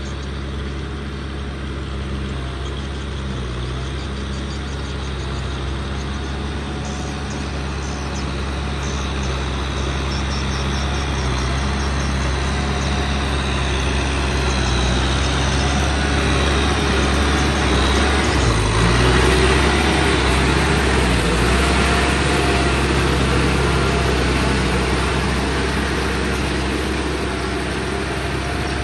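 Kubota M6040 tractor's diesel engine running steadily, growing louder toward the middle and easing off a little near the end.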